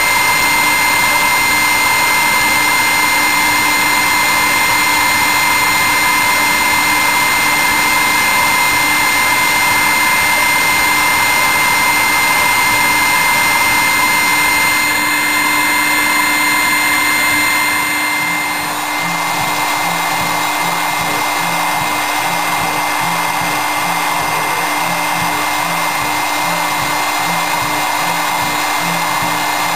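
High-speed spindle of a CNC milling machine running steadily, with a whine, while an engraving cutter mills isolation tracks into a copper-clad circuit board. About two-thirds of the way through, a high whine drops out and the sound shifts slightly.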